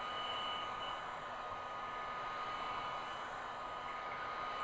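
Heat gun blowing steadily on a very low setting: an even fan whoosh with a thin, steady whine.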